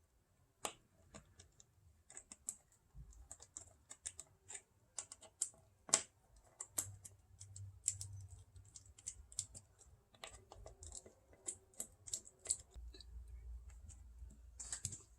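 Light, irregular clicks and taps of hand tools and small metal fasteners as the PCV valve is bolted onto the engine.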